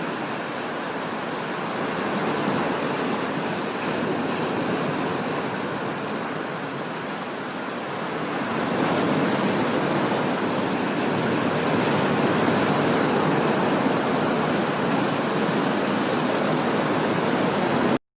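Steady rush of water, swelling louder about eight seconds in and cutting off suddenly near the end.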